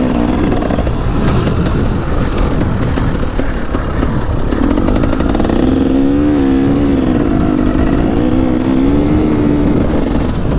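KTM 300 EXC two-stroke dirt bike engine running while the bike is ridden over a rough motocross track. Its note rises and falls with the throttle and is most plain in the second half. A steady rushing noise lies over it throughout.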